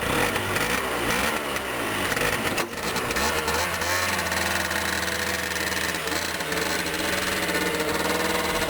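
Honda Dio 50cc two-stroke scooter engine running, its pitch rising and falling for the first few seconds, then settling into a steady idle. It runs on fuel now reaching the carburettor through the repaired vacuum fuel pump.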